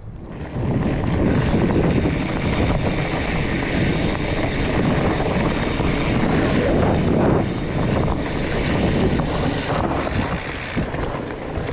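Wind rushing over an action camera's microphone, mixed with the rumble of a fat bike's tyres rolling over a dirt forest trail. The noise rises about half a second in and then runs steadily.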